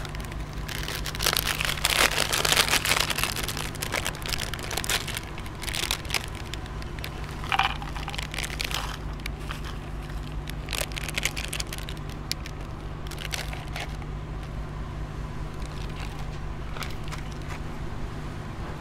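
Foil snack bag crinkling loudly as it is opened and handled, followed by scattered light clicks and rattles as small chocolate-filled wafer rolls are poured into a glass bowl. A steady low hum runs underneath.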